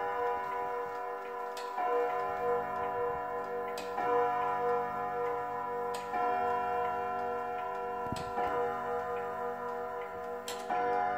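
Lorenz Furtwängler & Söhne wall clock striking the hour on its gongs at twelve o'clock: single strokes about every two seconds, each ringing on into the next, with the clock's ticking underneath.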